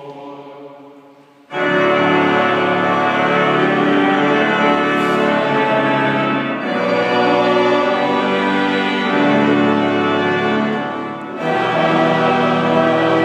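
A chanted phrase dies away in a reverberant chapel. About a second and a half in, an organ comes in loudly with sustained chords, pausing briefly between phrases twice.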